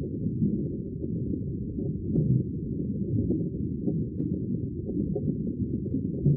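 Sea water sounding deep and muffled: a steady, low rumbling wash with slight swells in level and no bright splash or hiss.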